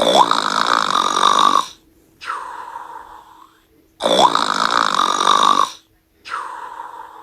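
Long, loud snoring in two cycles about four seconds apart, each a loud snore of about a second and a half followed by a softer, shorter one.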